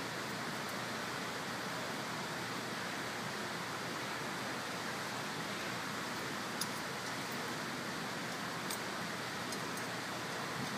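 Steady, even hiss of workshop background noise, with a few faint light clicks in the second half as bolts are hand-threaded into a turbo outlet pipe flange.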